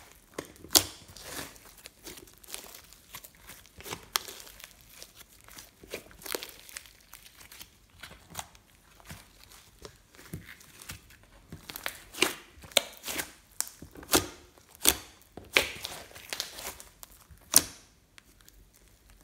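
Thick slime squeezed and kneaded by hand, giving off a string of sharp pops, clicks and crackles. The pops thin out in the middle, come thickest and loudest in the second half, and stop about a second before the end.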